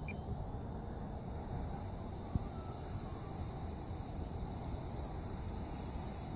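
High-pitched whine of the E-flite Havoc's 80mm electric ducted fan with a Wemotec EVO rotor. It comes in about a second in and carries on with a wavering pitch.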